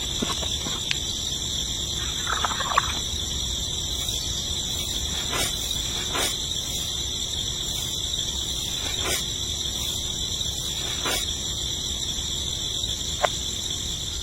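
Steady high-pitched chorus of insects such as crickets or cicadas, with a few scattered sharp clicks and taps.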